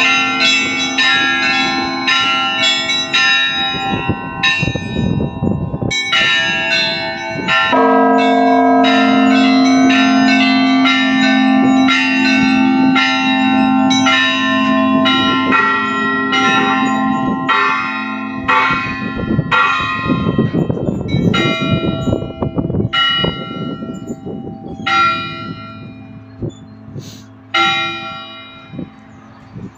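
Several church bells of different pitches rung by hand, struck in quick succession about two or three times a second over the steady hum of a deep bell. Near the end the strokes thin out to a few single strikes and the ringing dies away.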